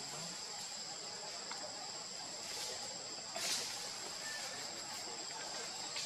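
Steady high-pitched drone of insects, holding two constant tones, with a short burst of rustling noise about three and a half seconds in.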